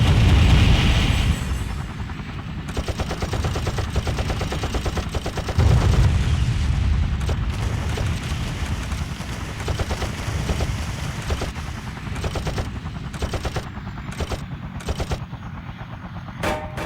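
Staged combat sound effects: long bursts of rapid machine-gun fire, with deep rumbling booms at the start and again about six seconds in.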